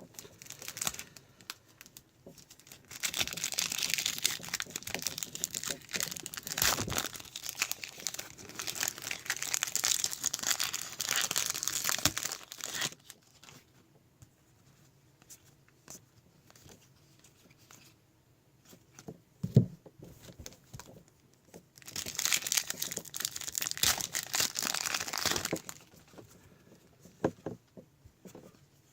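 Trading-card pack wrappers crinkled and torn open, in two long stretches of crackling, with a single low knock between them.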